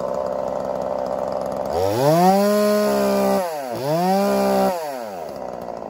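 Two-stroke gas chainsaw idling, then revved to full throttle twice, with a short drop between the revs, before falling back toward idle. This is typical of checking how the saw runs at full revs with its carburetor set on the rich side.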